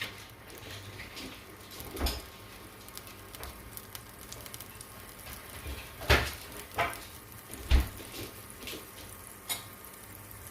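Butter melting and sizzling gently in a hot pan, with a few sharp knocks and clatters of a utensil or pan.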